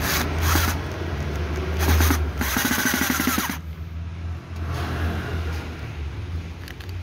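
Cordless drill-driver driving screws into a reciprocating saw's plastic housing, running in three short bursts with a rattling whine in the first three and a half seconds, its battery running flat. A steady low hum lies underneath throughout.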